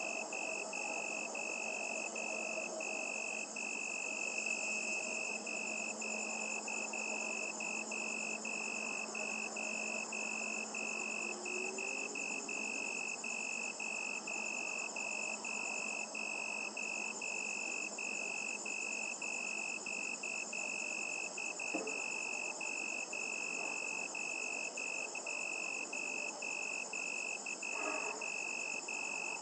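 Night chorus of crickets: a continuous high trill broken into short pulses about twice a second, over a fainter, higher shimmer of calls.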